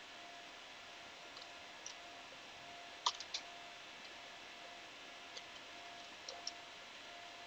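A handful of sparse computer mouse and keyboard clicks over a faint steady hiss. The loudest, a quick double click, comes about three seconds in.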